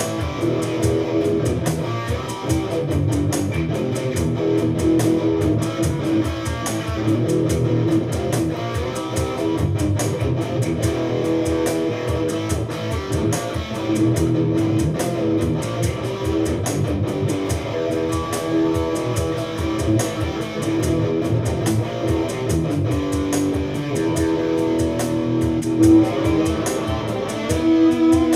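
Electric guitar played through an amplifier in a solo jam, a steady stream of melodic phrases and held notes. It is played on the neck pickup, which gives a dark tone with clear note definition.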